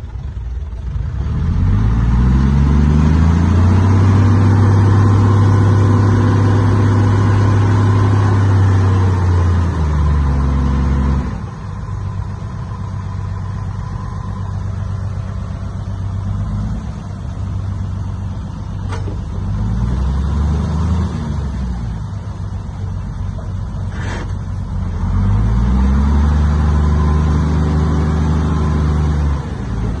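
Heavy diesel engine of earthmoving equipment revving up and holding high revs for several seconds. It drops back to a lower, steadier note about a third of the way in, rises briefly again past the middle, then revs up for a second long high stretch that falls away near the end.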